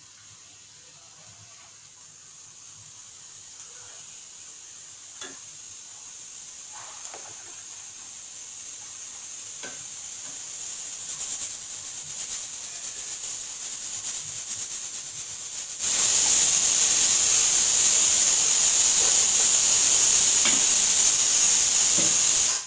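Hot oil sizzling in a steel kadai as puris deep-fry, growing slowly louder, with a few light clicks from the spoon against the pan. About two-thirds of the way through, a much louder steady hiss starts suddenly and then cuts off abruptly at the end.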